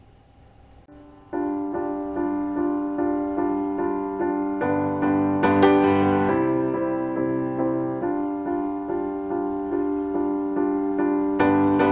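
Background keyboard music: after a quiet first second, a piano-like melody comes in with evenly repeated notes at a steady pulse.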